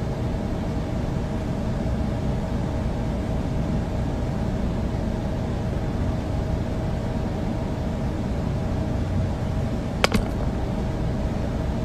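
Steady mechanical hum of room ventilation, even in level, with a few faint steady tones; one brief click about ten seconds in.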